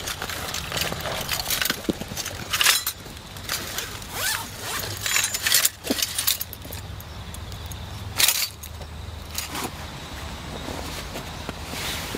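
Zipper on a soft fabric tool case being drawn in several separate strokes, with rustling and scraping of the nylon case and its mesh dry-bag insert as they are handled; the loudest stroke comes about eight seconds in.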